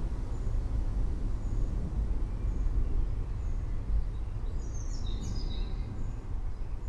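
Low, continuous rumble of distant rolling thunder. A few birds chirp faintly over it, most clearly about five seconds in.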